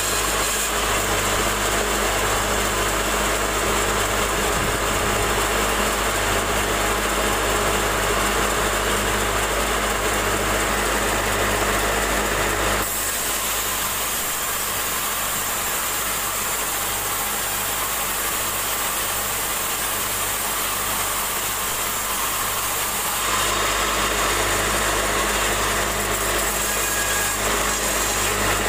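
Sawmill band saw running steadily and cutting through a log on a moving carriage. Its deep low rumble falls away for about ten seconds in the middle, then returns.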